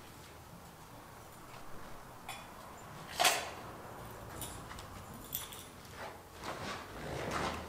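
Scattered knocks and clicks of handling and movement, the loudest a sharp knock about three seconds in, with rustling toward the end over a low steady hum.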